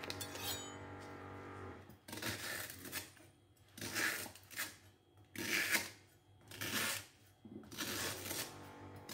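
Kitchen knife slicing lemongrass stalks on a plastic cutting board: a short crunchy cut about every second, six or so strokes, starting about two seconds in. A brief clink comes at the very start.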